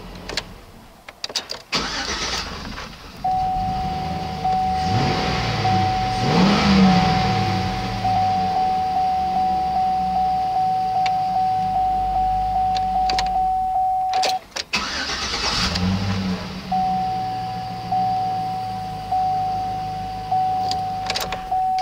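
Chevrolet 5.3-litre V8 running near idle, revved briefly about five seconds in and settling back. For much of the time a repeating dashboard warning chime pulses over it, stopping briefly two-thirds of the way through and then starting again.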